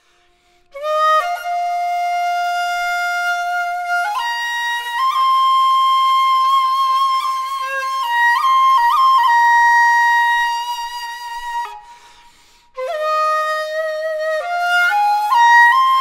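Short bamboo shakuhachi played solo: long held, breathy notes that step up and around with quick grace-note flicks between them. The tone drops away for about a second near the end for a breath, then the phrase resumes.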